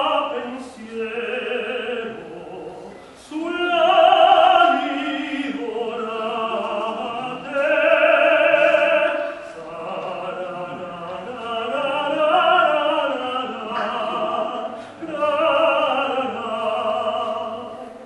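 A voice singing in operatic style, in phrases of long held notes with short breaks between them.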